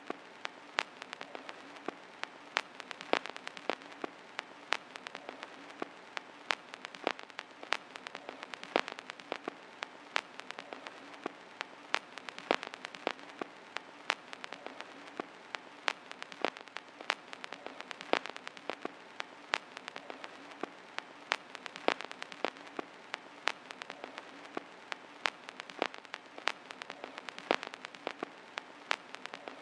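Vinyl record surface noise: a steady soft hiss with frequent irregular crackles and pops as the stylus runs in the groove.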